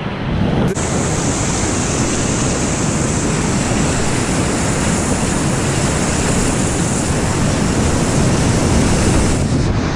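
Whitewater rapids of a river at medium-high flow, rushing loudly and steadily around a kayak as it runs the rapid.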